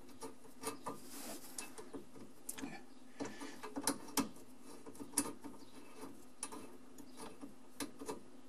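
Irregular small clicks and scrapes of a water supply line's threaded nut being worked by hand onto a dishwasher's water inlet fitting, the threads not catching. A steady low hum runs underneath.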